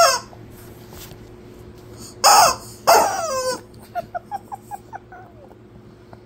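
Rubber squawking-chicken dog toy being squeezed in a dog's jaws: a short squawk at the start, two loud drawn-out squawks falling in pitch about two and three seconds in, then a quick run of short squeaks that fade away.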